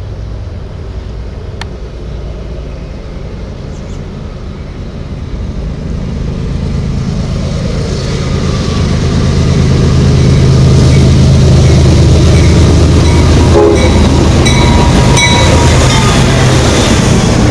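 Diesel locomotive at the head of a CSX intermodal freight train approaching and passing close by. Its low engine rumble grows steadily louder over the first ten seconds, then holds loud as the locomotive and the first cars roll past, with a few brief high-pitched tones about three quarters through.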